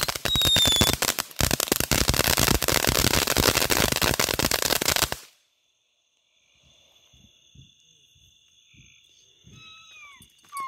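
Ground fountain firework with a whistle burning: a falling whistle in the first second over dense, fast crackling, which cuts off abruptly about five seconds in as the fountain burns out.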